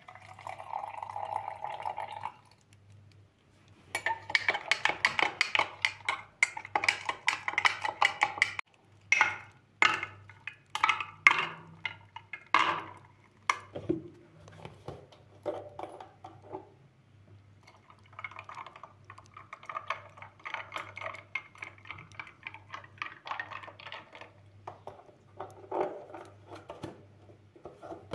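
Kitchen food-preparation sounds: liquid pouring for about two seconds, then a utensil clinking and scraping against a dish in bursts with short pauses.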